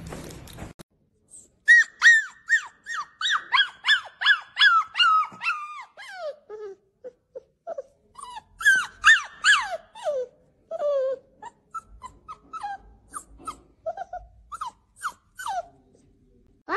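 Young puppy whimpering: a long string of short, high whines, each sliding down in pitch, several a second, some higher and some lower.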